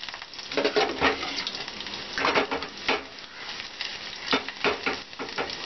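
Thinly sliced onion sizzling and crackling in hot desi ghee in a small tadka pan, frying for the tadka.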